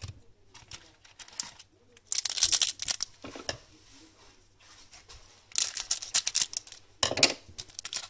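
Hockey card pack wrapper crinkling and tearing as a pack is taken from the box and opened: a short bout of crackling about two seconds in, then a longer one from about five and a half seconds in.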